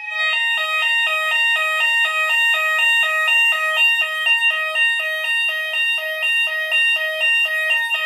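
Hochiki addressable fire alarm system sounders going off after a smoke detector is triggered with test smoke. A fast stepped, repeating tone cycles about three times a second over a steady high-pitched tone, starting abruptly.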